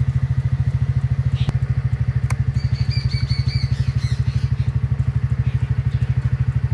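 TVS Ntorq 125 scooter's single-cylinder engine idling steadily, with an even, rapid pulse of about a dozen beats a second.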